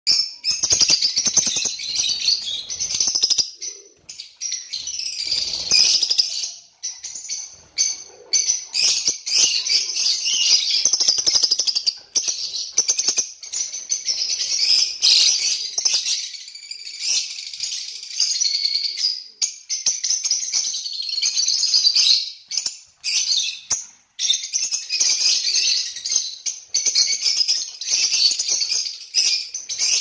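Many lovebirds chattering: a dense, shrill run of high-pitched chirps, broken by a few brief pauses.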